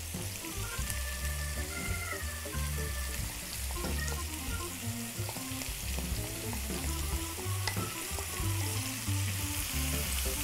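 Ossobuco veal shanks and a chopped onion, carrot and celery soffritto sizzling in a frying pan, with a wooden spoon starting to stir them near the end. Background music with a repeating bass line plays along.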